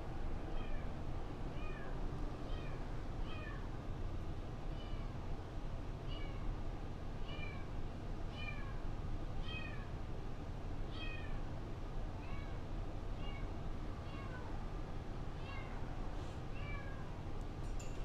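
Kittens mewing over and over, short high calls that fall in pitch, about one every half second to a second, over a steady low room hum.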